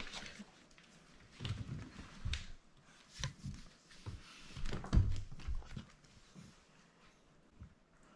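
English Springer Spaniel puppies playing around and on their mother on a hardwood floor: scattered soft thumps and scuffles, irregular, loudest about five seconds in.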